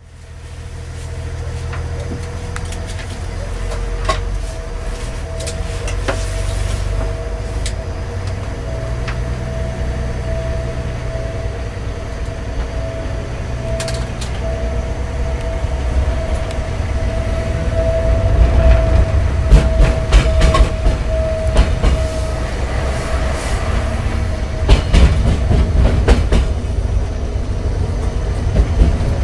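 Siemens Desiro BR642 diesel railcar pulling away and slowly accelerating, heard from the driver's cab: a low engine rumble growing louder, with a steady whine that fades out a little over two-thirds through. From about halfway on, the wheels clatter and knock over the track, with several sharp knocks.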